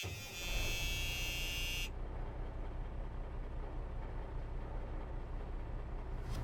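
A buzzing electronic tone that cuts off suddenly about two seconds in, over a steady low rumble of vehicle noise.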